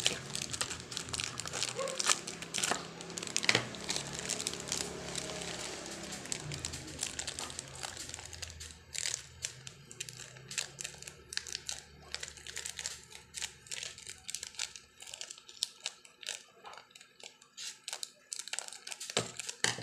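Clear plastic packaging bags crinkling as they are handled, pulled from a cardboard box and cut open with scissors. The crackling is dense at first and sparser and more broken in the second half.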